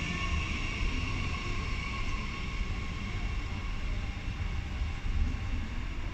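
Red Bombardier Talent 2 electric multiple unit running away along the track: a steady high electric whine over a low rumble of wheels on rail, the whine slowly fading as the train draws off.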